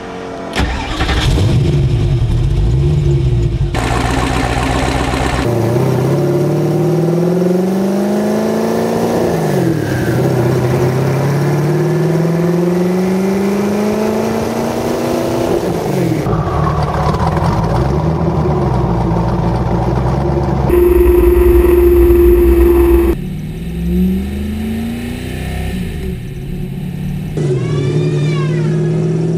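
Twin-turbo 427 cubic inch LSX V8 starting up and then running hard. Its pitch climbs and drops again several times as the car accelerates through the gears. Near the middle there is a louder, steady drone for a couple of seconds.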